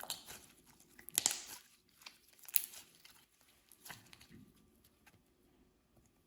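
Clear slime worked by hand, stretched and pressed so that it crackles and pops stickily in about four short bursts, then goes quiet.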